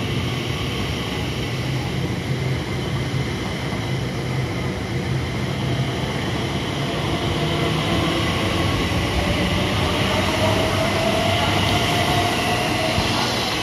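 Class 345 Elizabeth line electric train running through the station without stopping: a steady rumble and hiss of wheels on rail that grows a little louder in the second half, with a whine rising in pitch, then dropping off at the very end as the rear of the train goes by.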